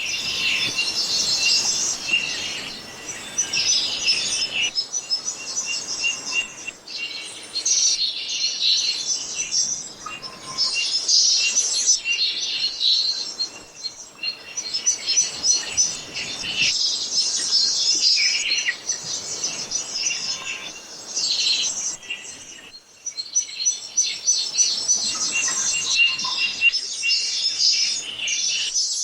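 Many small songbirds chirping and twittering together in a dense chorus of quick, high notes, swelling and easing every few seconds.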